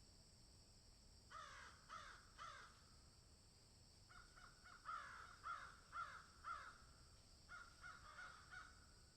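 Crows cawing: three caws about a second in, then a longer run of caws in the middle and a shorter run near the end, faint, over a steady high hiss.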